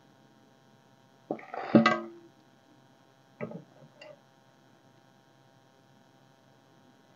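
A sharp knock with a brief ringing tone about a second and a half in, then two lighter knocks, from a bonsai root ball and its wooden board and tools being handled during repotting, over a steady mains hum.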